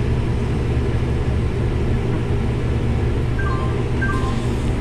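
Combine running steadily while shelling corn, a loud, even, low drone.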